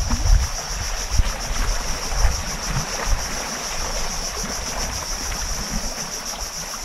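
Steady high-pitched buzzing of insects, over a low, gusty rumble of wind on the microphone and water at the rocky shore, with a few small knocks.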